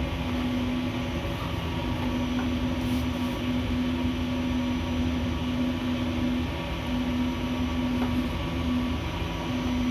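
Steady machine hum with a low rumble and a droning tone that drops out briefly several times.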